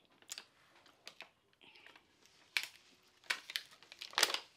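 Eating sounds at close range: wet mouth clicks and lip smacks from chewing stewed pig feet. They come irregularly, and a few louder smacks fall in the second half.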